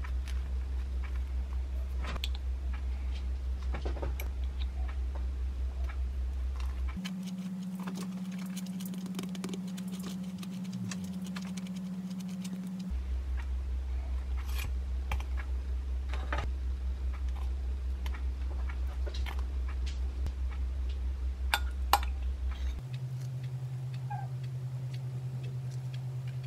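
Small clicks, taps and rustles of hands assembling a pork cutlet sandwich: bread set on plastic wrap, metal tongs placing the fried cutlet, avocado slices laid on top, with two sharper clicks a little after the middle. Underneath runs a steady low hum that jumps up in pitch twice.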